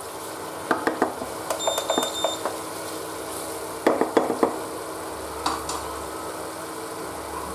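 Spatula stirring and scraping a thick tomato-onion masala around a kadhai in four short bursts of strokes, over the steady low sizzle of the masala roasting. A brief high tone sounds about two seconds in.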